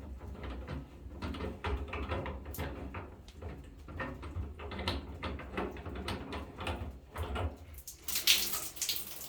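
Adjustable wrench and metal shower-head fitting clicking and knocking in quick irregular strokes as the shower head is unscrewed from the arm, with a brief hiss about eight seconds in.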